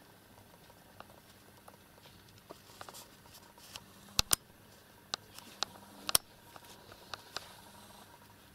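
Scattered light taps and clicks of a kitten pouncing and pawing at a dangling toy on a bedspread, the loudest a quick pair about four seconds in.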